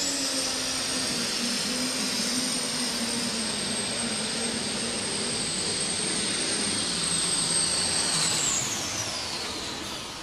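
Case IH Magnum diesel super stock pulling tractor under full load, its turbocharger whine climbing sharply at the start and held at a steady high pitch over the engine's drone. About eight and a half seconds in, the whine and engine note fall away as the tractor is throttled back.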